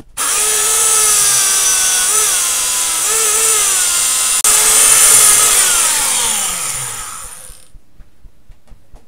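Electric grinder switched on and grinding metal off a part of the tower clock's works, its whine dipping in pitch a couple of times as it bites. After a brief break it runs again, then winds down with a steadily falling whine about six seconds in.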